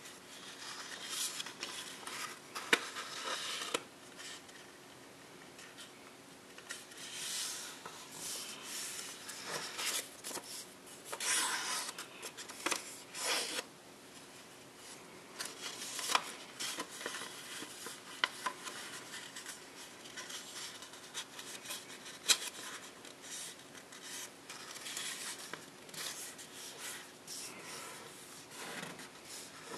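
A sheet of copy paper rustling and scraping as it is handled and folded by hand against a table, in irregular swishes with a few sharp clicks.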